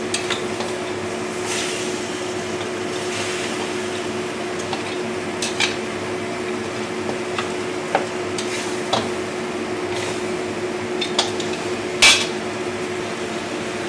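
Metal spatula stirring pork trotters in a stainless steel wok, scraping and clinking against the pan with sharp clanks every few seconds, the loudest near the end, over a steady low hum.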